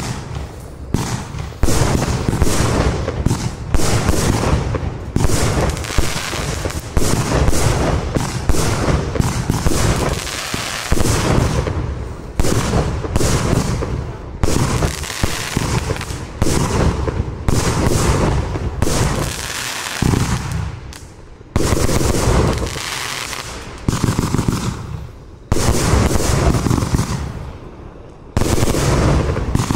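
Iskra Green Goblin compound firework cake (25 and 30 mm calibre) firing a long run of shots: launch thumps and loud bursting bangs one after another, with short lulls about two-thirds of the way through and again near the end.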